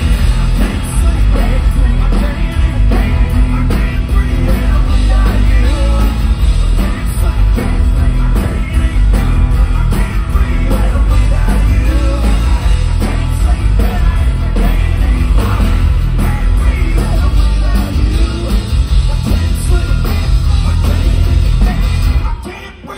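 Live rock band playing loud with singing, acoustic guitar, electric guitar, banjo and drums over heavy bass. The full band cuts off suddenly near the end.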